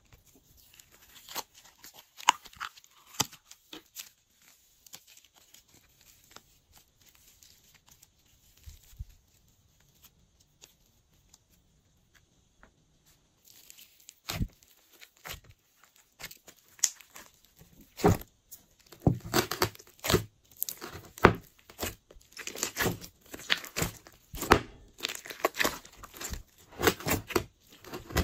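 Hands squishing, pressing and pulling slime: sticky crackling and popping clicks. Sparse and soft at first, then dense and louder from about halfway as the slimes are pressed together and mixed into clear slime.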